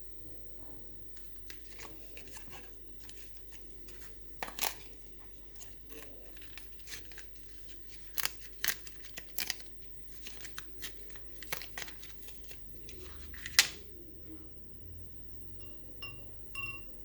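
Packaging of a cleaning tablet being torn open and crinkled by hand: irregular crackles and tearing, sharpest about four and a half and thirteen and a half seconds in. A light tap with a short ring near the end.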